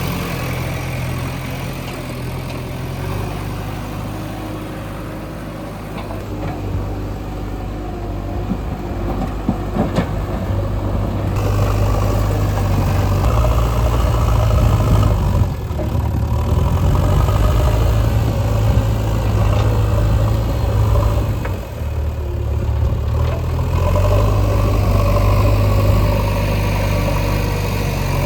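Heavy diesel construction machinery engines running, the engine note rising and falling as the load changes, with a couple of sharp clicks about ten seconds in.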